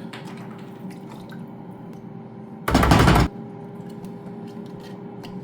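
Water sloshing and rattling inside a jar of roasted garlic sauce shaken hard in one loud burst of about half a second, roughly three seconds in, over a faint steady hum.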